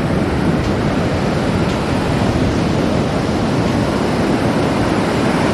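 Ocean surf breaking and waves washing up over the sand, a steady rushing noise.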